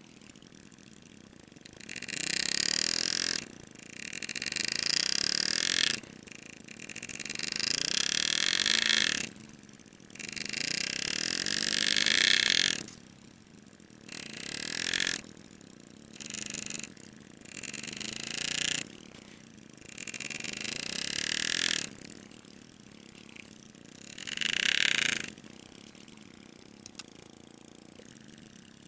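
Graver cutting scroll engraving into a sterling silver ring, in about nine bursts of high-pitched scraping hiss lasting one to three seconds each, with short pauses between cuts.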